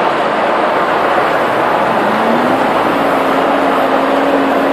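Manitou MLT 1035 telehandler's turbo diesel engine running loud and close, with a heavy rushing noise over it. About two seconds in the engine's pitch rises a little and then holds steady at the higher speed.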